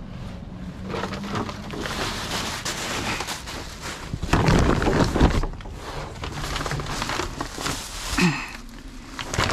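Rummaging through a dumpster's contents: bags rustling and items knocking and clattering, loudest about four to five seconds in.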